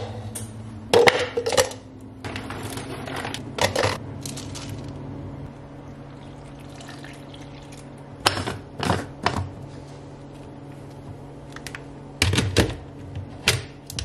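Smoothie ingredients going into a Ninja personal blender: the plastic blending cup being handled and set down, ingredients tipped in and almond milk poured, giving a series of sharp plastic clicks, knocks and clatters with softer pouring between them.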